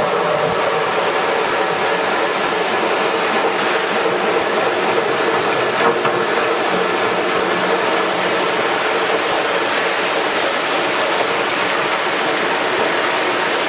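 JR 32L electric meat mincer running steadily, a constant machine drone with a fixed whine. A single brief click about six seconds in.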